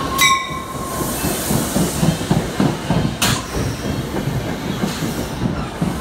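NJ Transit Comet passenger coaches rolling past the platform as the train pulls into the station, their wheels knocking and clicking over the rail joints. A bell stroke fades away at the start, and a short sharp burst of air hiss comes about three seconds in.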